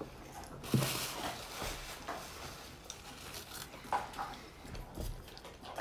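Eating at a table: chewing and small rustles of a burrito's paper and foil wrapping, with a thump about a second in and a softer one near the end.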